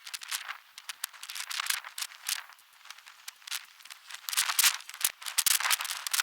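Irregular clicks, taps and light rattles of parts and tools being handled as wheels are fitted to an aluminium full-size football goal frame. The sound is thin, with no low end.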